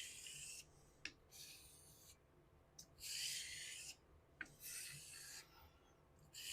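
Vintage straight razor stroked across a Shapton water stone: four hissing honing strokes just under a second each, with a light click between some of them. The strokes set an even bevel on a blade with uneven geometry.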